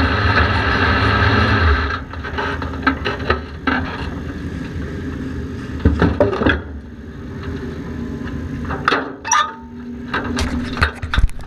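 Street stock race car's engine idling, heard from inside the car, then cutting off about two seconds in. After that, scattered clicks and knocks.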